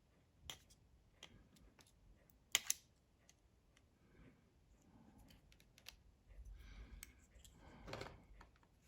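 Faint, scattered small clicks and taps of hand tools against the opened iPhone 5S, with a sharper double click about two and a half seconds in and light handling noise near the end.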